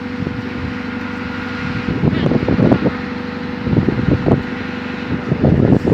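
A steady engine hum with a faint high whine. From about two seconds in, gusts of wind buffet the microphone.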